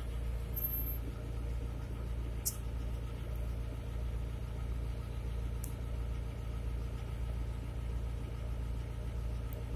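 Heavy truck's diesel engine idling, a steady low rumble.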